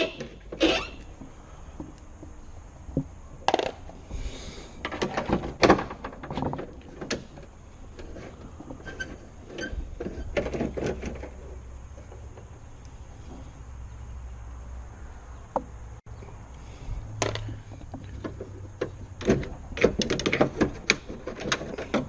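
A socket wrench and metal door hardware being worked inside a 1995–2002 Toyota Corolla's rear door while the outside handle is unbolted: irregular clicks, knocks and scrapes of metal, coming in a few short spells.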